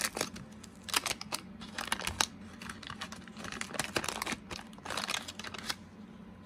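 Paper crinkling and baseball cards being handled, a quick string of light clicks and rustles that thins out near the end.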